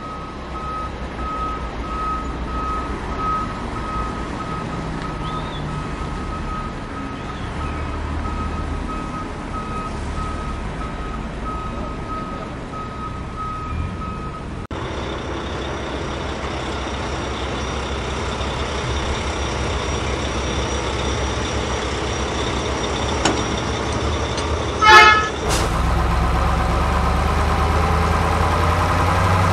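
Truck engine sounds running throughout, with a run of evenly spaced high beeps over a low hum in the first half. After an abrupt change about halfway, a short loud horn toot sounds near the end and the low engine rumble grows louder.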